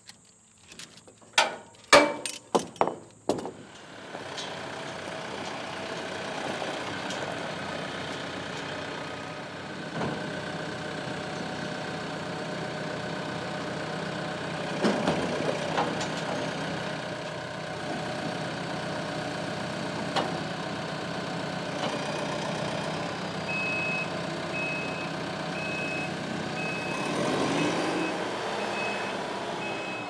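A handful of sharp clicks in the first few seconds, then a TYM compact diesel tractor's engine running steadily. From about two-thirds of the way through, a high reversing alarm beeps at a steady rate of a bit more than one beep a second while the tractor backs up.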